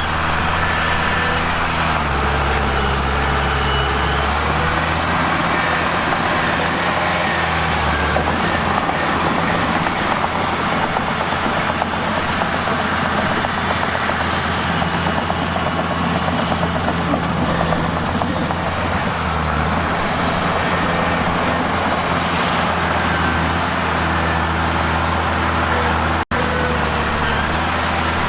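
Mitsubishi bulldozer's diesel engine working under load, its pitch rising and falling, with a dense rattling noise over it. There is a brief break about two seconds before the end.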